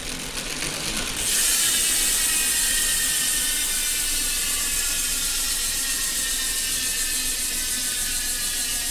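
Unbranded bicycle rear hub's freehub buzzing as the wheel spins freely: a fast, dense run of pawl clicks that grows louder about a second in and then drops gently in pitch and level as the wheel slows.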